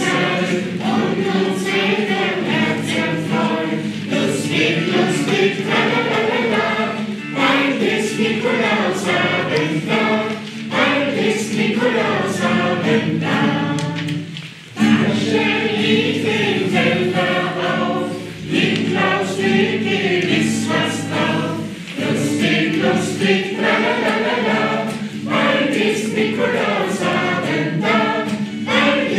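A mixed choir of adults and children singing a German St. Nicholas song, accompanied by acoustic guitar. There is a brief break between lines about halfway through.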